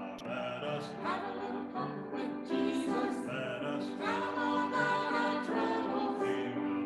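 A small mixed vocal group of two men and two women singing together, several voices sounding at once on changing notes.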